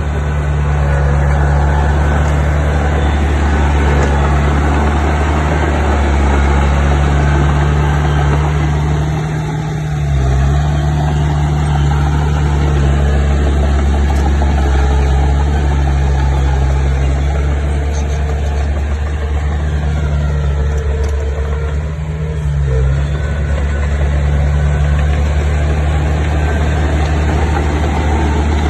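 Bulldozer's diesel engine running steadily. Its pitch dips briefly about ten seconds in and again a little past twenty seconds.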